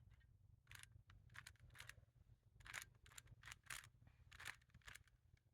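Faint plastic clicks of a Rubik's cube's layers being turned by hand: about ten quick clicks at irregular spacing while an algorithm is executed.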